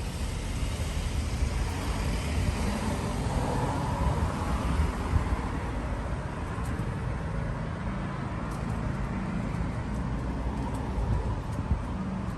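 Outdoor road traffic noise: a steady low rumble with a hiss that swells over the first half, as of a vehicle passing.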